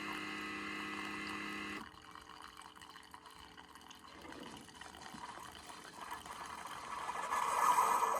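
Keurig K-Compact single-serve brewer's water pump humming steadily, cutting off about two seconds in, then the hot drink trickling into the mug. Near the end a louder sputtering rush of water and air builds up as the brewer pushes out the last of the brew.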